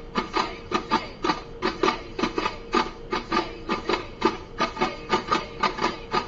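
Several daffs, hand-held frame drums, beaten together by hand in a fast, even Duffmuttu rhythm, several strikes a second, over a steady held tone.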